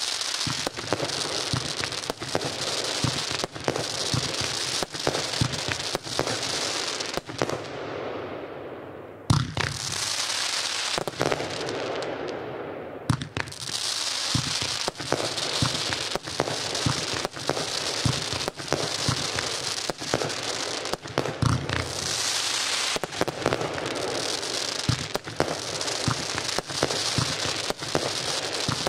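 Consumer firework battery (cake) firing its shots one after another: frequent sharp pops and bangs over a continuous dense crackle.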